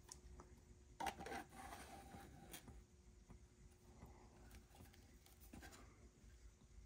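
Near silence with faint handling noise: light rubbing and a few soft clicks as a 3D-printed plastic condiment dispenser is turned over in the hands, the loudest about a second in. A faint steady hum sits underneath.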